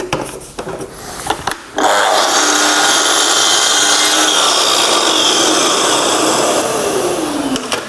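Festool Kapex KS 60 sliding compound mitre saw started about two seconds in and running steadily as its blade cuts through a wooden moulding. Near the end the motor winds down with a falling pitch.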